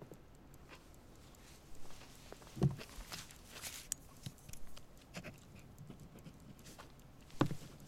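Faint handling sounds of a man chewing an apple and a pen scratching on paper as he writes, with a couple of short soft knocks, about two and a half seconds in and near the end.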